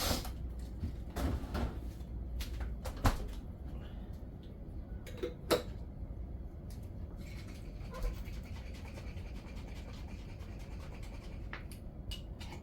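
Scattered clicks and knocks of kitchen containers and utensils being handled, over a low steady room hum.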